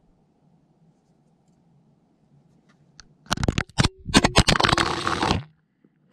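Action camera knocked about on the ground: after a few quiet seconds, about two seconds of loud scraping and rapid knocking against rock and dry grass as the camera is moved fast, then it stops suddenly.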